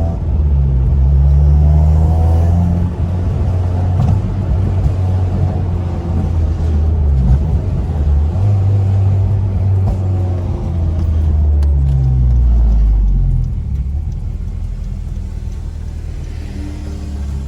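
9th-generation Honda Civic Si's four-cylinder engine and exhaust running as the car is driven, a deep rumbling note that rises and falls several times as it pulls and eases off, quieter near the end.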